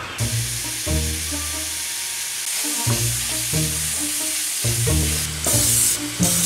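Ground beef sizzling as it browns in a cast-iron skillet, stirred with a wooden spoon, with louder bursts of stirring near the end. Background music plays under it.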